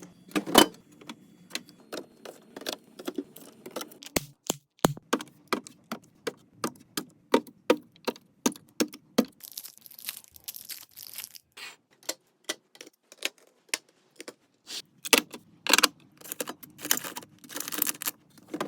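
Rapid clicks, taps and knocks of containers and food packages being handled and set down while restocking a refrigerator, with a longer stretch of noisy rustle about ten seconds in and again near the end.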